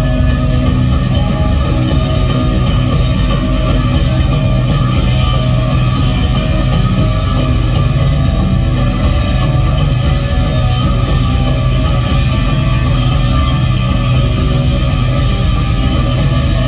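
Punk rock band playing live at full volume, with distorted electric guitar and drums, as heard from the audience.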